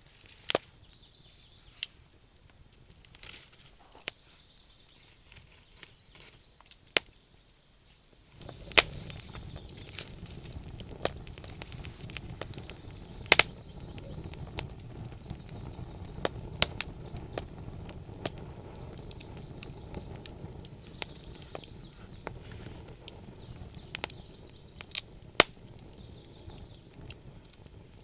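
Wood fire in a fireplace crackling, with sharp irregular pops of burning logs. About eight seconds in, a low rushing of flames sets in under the crackle and carries on, easing somewhat later.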